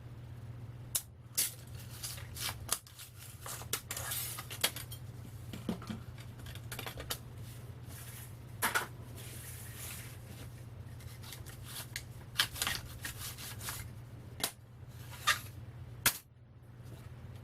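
Thin steel transformer laminations being pried and knocked loose from the iron core: irregular metallic clicks, taps and clinks as the plates are worked free and slid out, over a steady low hum.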